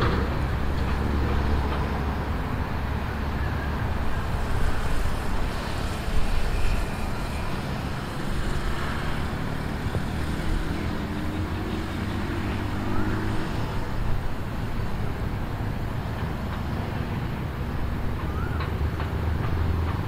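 Small sport motorcycle's engine running as it is ridden round a tight kart circuit, a steady low drone whose pitch rises and falls between about 7 and 13 seconds in, heard from the trackside.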